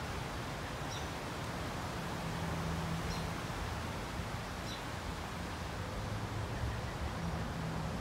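Steady rush of a creek running over rocks, with a bird giving a few short, high chirps spaced a second or more apart.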